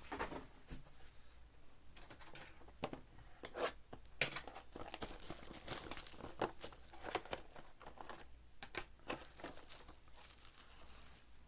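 Plastic card packaging and sleeves crinkling and rustling as trading cards are handled, in irregular short crackles.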